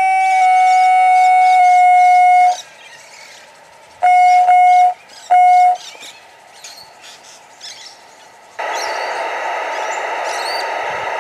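Steam-locomotive sound effects from a MyLocoSound soundcard in a large-scale model pannier tank locomotive. A long steam whistle note steps down in pitch and cuts off about two and a half seconds in, followed by two short toots of the whistle. From about eight and a half seconds in, the safety valve blows off as a steady steam hiss.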